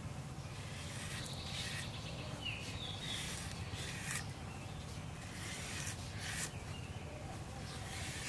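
Rural outdoor background: a steady low rumble with a few brief bird chirps, and short scraping noises every second or so.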